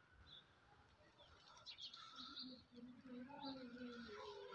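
Near silence: faint bird chirps, with a faint distant voice in the second half.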